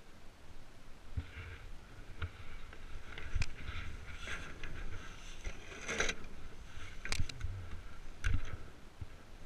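Iceboard's blades scraping and rattling over lake ice while sailing, with irregular sharp knocks from the board and rig, over a low wind rumble on the microphone.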